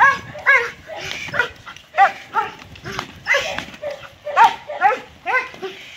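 German Shepherd barking rapidly and continuously, about two to three sharp barks a second, as it lunges at a decoy during protection bitework.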